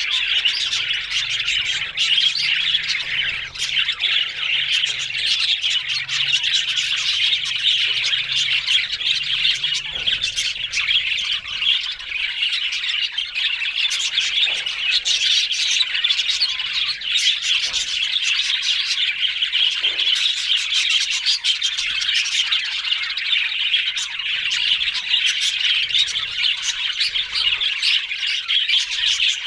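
Budgerigars chattering and chirping without a break, a dense stream of overlapping high calls and squawks.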